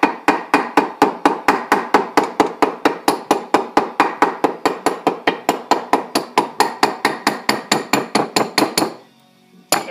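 Rapid, steady tapping of a small metal rod on gasket material laid over a metal engine part, about five or six strikes a second, stopping shortly before the end with one last tap. The tapping drives the material against the part's sharp edge so that it cuts its own gasket.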